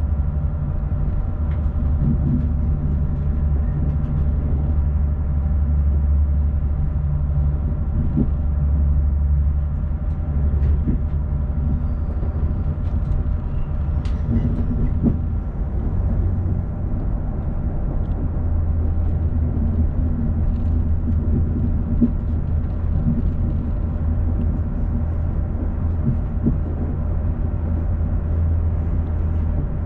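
Inside the passenger saloon of a Class 221 Super Voyager diesel-electric train as it pulls away over station pointwork: a steady low drone of the underfloor diesel engines and running gear, with a few steady tones above it. Now and then a sharp click of the wheels crossing rail joints or points.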